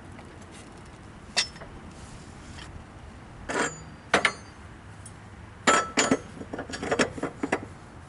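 Metal clanks and clinks, a dozen or so sharp strikes in irregular groups, several ringing briefly.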